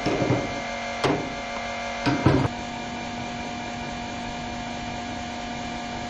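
A few knocks as the fuel filler cap comes off a tractor's tank and the pump nozzle goes in, then a fuel pump running with a steady hum from about two and a half seconds in as it fills the tank.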